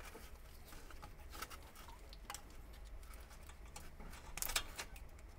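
Faint clicks and rubbing as a rubber coolant hose stuck by corrosion is twisted and worked off its fitting on an engine thermostat, with a short cluster of louder clicks about four and a half seconds in.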